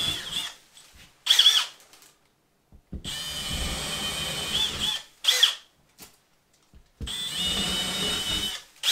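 Handheld electric drill with a 1/2-inch bit boring holes through drywall for toggle anchors. It runs in bursts of about two seconds with a steady whine, stops between them, and after each run gives a short, sharp spurt.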